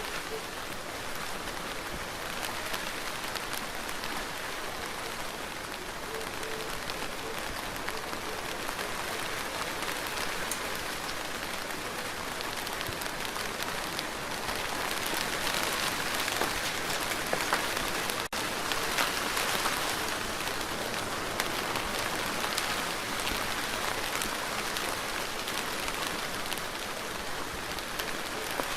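Steady rain falling on a surface, with individual drops heard as fine ticks; it grows somewhat heavier about halfway through, then eases back.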